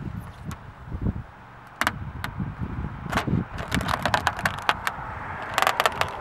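Window tint film peeling off a car's side window glass: the plastic film crinkles and rips away from the adhesive, with a run of sharp crackles and snaps that grows busier in the second half.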